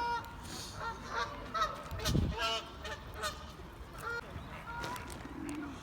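Geese honking, a dozen or so short calls in quick succession from several birds, with a brief low rumble about two seconds in.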